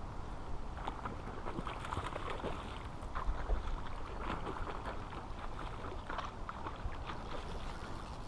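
Light, irregular splashing of water, many small splashes, over a steady low wind rumble.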